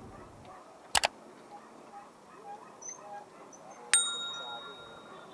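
A short double click about a second in, then a sharp metallic ding about four seconds in that rings on for over a second; faint chirps in between.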